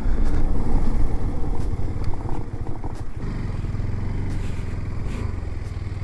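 KTM 390 Adventure's single-cylinder engine and road and wind noise as the motorcycle slows onto a bridge. About three seconds in, the engine settles into a steady idle.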